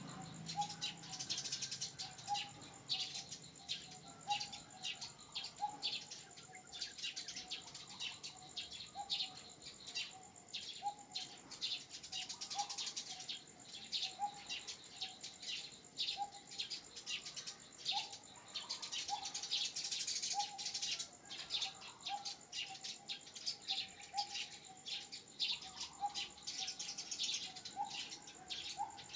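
Outdoor ambience of birds chirping: rapid, dense high chirps over a steady high insect whine, with a short lower call repeated about once a second.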